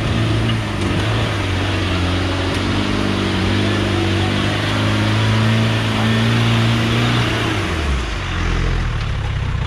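Land Rover Defender's engine pulling under load at steady high revs as the 4x4 climbs a muddy off-road track, with the tyres churning through mud. About eight seconds in, the revs drop away.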